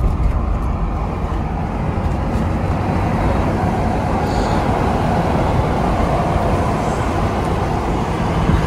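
Steady road noise of a moving motor vehicle: an even rumble of tyres and traffic.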